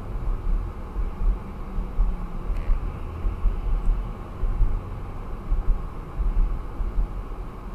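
Steady low rumble of road and engine noise inside the cabin of a car driving at speed.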